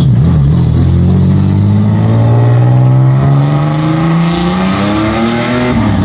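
Toyota Land Cruiser SUV engine revving up as it accelerates away, its pitch climbing steadily for about five seconds and dropping off near the end.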